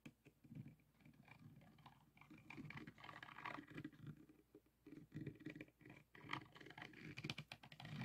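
Fingertips and a diamond-painting drill pen rubbing and tapping across the faceted resin drills of a diamond painting canvas: a faint, irregular run of many quick small clicks and scratches.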